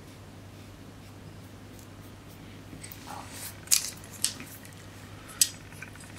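Hands handling graphics-card cooler parts and a small scrap of film on a workbench: a faint steady hum at first, then from about three seconds in a soft rustle and three sharp clicks.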